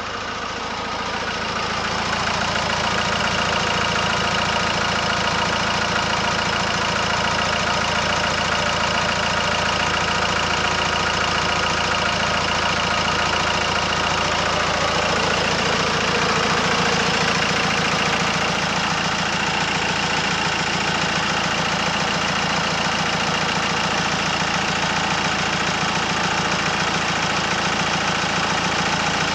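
A 2008 Nissan D40 Navara's 2.5-litre four-cylinder turbo-diesel engine idling steadily. It gets louder over the first couple of seconds, then holds at an even level with no revving.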